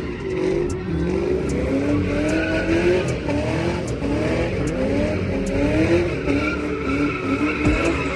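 Pontiac G8's 6.0-litre V8 with long-tube headers running and being revved, its pitch rising and falling again and again. The headers have an exhaust leak from two broken header bolts, the cause of the exhaust tick.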